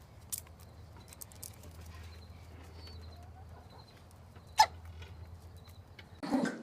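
A pet's single short, sharp sneeze about four and a half seconds in, over a faint steady hum. A second, noisier burst starts near the end.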